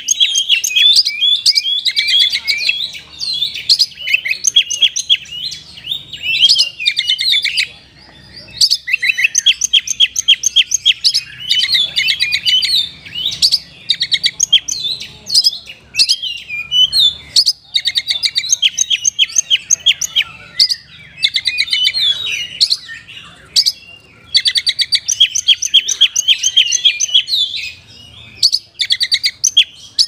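Oriental magpie-robin (kacer) in full song: long runs of rapidly repeated high, whistled and chattering notes, broken by a few brief pauses.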